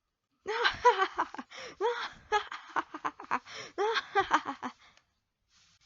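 A high-pitched voice laughing in several short bursts, stopping about five seconds in.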